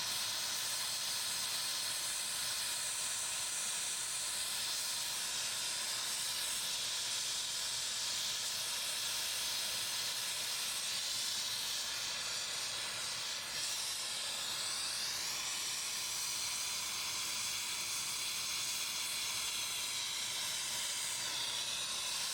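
Brazing torch flame hissing steadily during a braze on refrigerant line joints.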